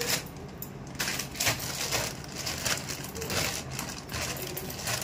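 Knife chopping vegetables on a cutting board: a run of sharp, uneven strokes, about two a second.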